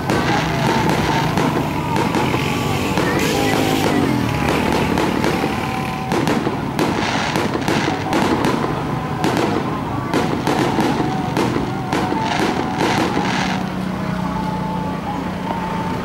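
Fireworks going off again and again: a dense string of sharp bangs and pops, several a second at times, over a steady background hum.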